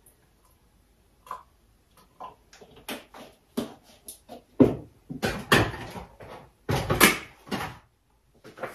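Kitchenware and cupboards handled while making coffee: light, scattered clicks and knocks at first, then a busier run of louder knocks and clatter from about halfway through.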